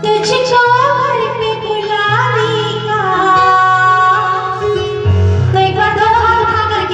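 A woman singing a Hindi devotional song (bhajan) into a microphone, with long held and gliding notes, over an instrumental accompaniment with steady bass notes.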